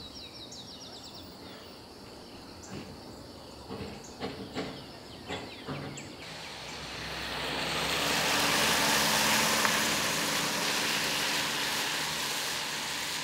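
Birds chirping and a few light knocks, then a vehicle passing on wet pavement: tyre hiss and engine swelling from about six seconds in, loudest around nine seconds, then slowly fading.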